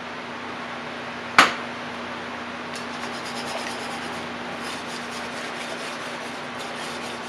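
Small wire whisk stirring a thick sauce in an enamelled pot, its wires rubbing and scraping lightly against the pot from about three seconds in. One sharp knock, the loudest sound, comes about a second and a half in, over a steady low hum.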